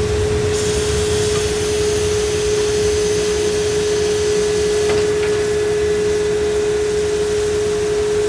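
Narrow-gauge steam locomotive drawing to a stop, venting steam in a loud hiss that starts about half a second in and dies away about five seconds in, over a steady high hum.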